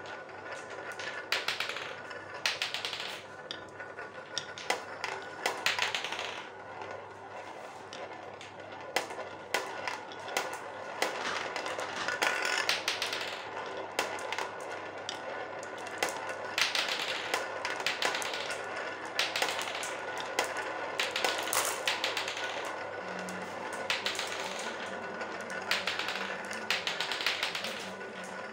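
Marbles rolling around a plastic funnel bowl: a rolling whir that swells and fades again and again as they circle, with scattered sharp clicks as they knock together and drop through the centre hole.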